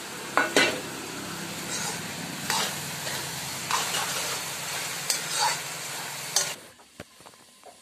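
Taro stems sizzling as they stir-fry in an aluminium wok, with a metal ladle scraping and turning them in irregular strokes about a second apart. The sizzle cuts off suddenly near the end.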